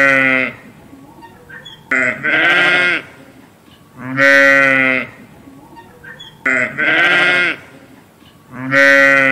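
Sheep bleating: four long bleats about two seconds apart, each a drawn-out, slightly quavering "baa", some with a short call just before.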